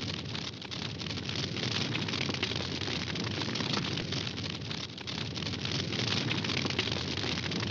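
Wood campfire burning, with constant crackling and small pops over a steady hiss of the flames.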